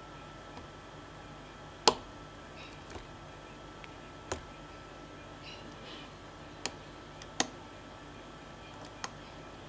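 Lock pick and tension bar working the pins of a pin-tumbler challenge lock held in a vise: about five sharp, short clicks at irregular intervals, the loudest about two seconds in and near the three-quarter mark, over a faint steady hum.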